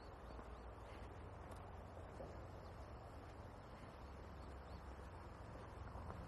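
Faint outdoor ambience: a steady low rumble and hiss, with a few short, faint high bird chirps scattered through it.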